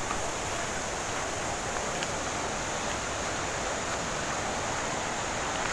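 Steady rushing water from a nearby waterfall or stream.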